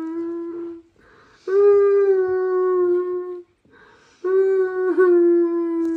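Husky howling: long, steady howls of about two seconds each, falling slightly in pitch, with short pauses between them.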